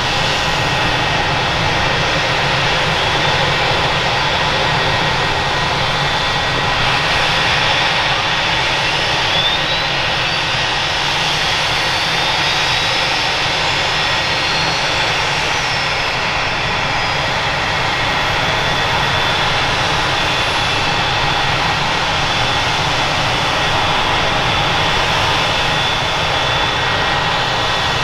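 Boeing AH-64 Apache's twin turboshaft engines running on the ground with the rotors turning, a steady turbine whine over even rotor and exhaust noise.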